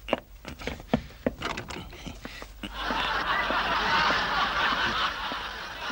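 Studio audience laughing: a few sharp clicks, then a broad wave of laughter that swells up about halfway through and holds for nearly three seconds before tailing off.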